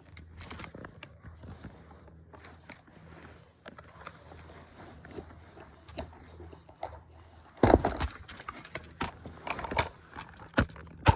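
Handling noise of plush toys and props being moved by hand: scattered scrapes, rustles and small knocks, with louder thumps about eight seconds in and again near the end, over a faint low steady hum.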